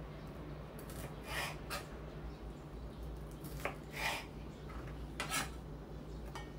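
Chef's knife cutting a red bell pepper on a cutting board: about seven separate cuts, each a short knock and scrape of the blade through the flesh onto the board, over a steady low hum.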